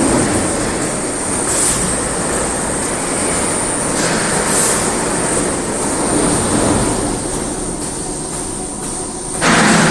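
Four-station CNC polishing machine running, its polishing wheel working against a part with dense noise and a steady high whine. A louder rush comes about nine and a half seconds in.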